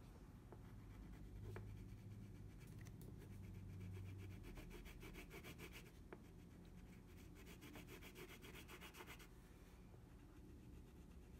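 Wax crayon scribbling on paper in quick, short back-and-forth strokes, faint, busiest through the middle of the stretch while colouring in the background.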